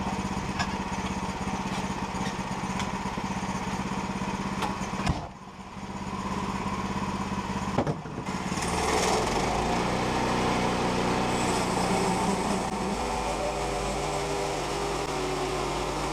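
Woodland Mills portable sawmill's engine running steadily. The sound drops away briefly about five seconds in, breaks off sharply near eight seconds, and then comes back with a fuller tone.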